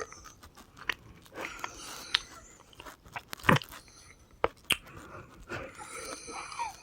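Close-up laboured breathing, with thin high whistling tones in two stretches of breaths and several sharp crackling clicks; the breathing is strange even after her last breathing treatment.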